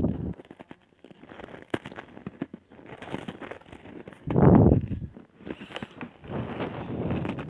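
Chewing crunchy cookies close to the microphone: crackling crunches and small mouth clicks, with a louder surge about four and a half seconds in.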